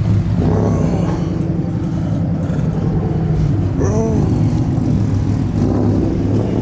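Pickup truck's V8 engine idling loudly, a steady deep rumble, with a couple of brief voice sounds over it.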